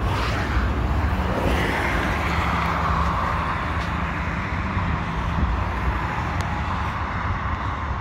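Road traffic passing, over a steady low rumble. A vehicle's whoosh swells about a second and a half in, then slowly falls in pitch and fades.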